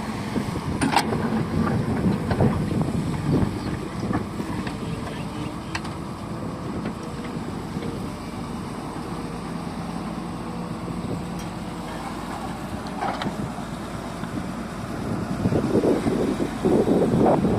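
Hyundai 140W wheeled excavator's diesel engine running steadily, with scattered knocks and clanks. It grows louder over the last couple of seconds.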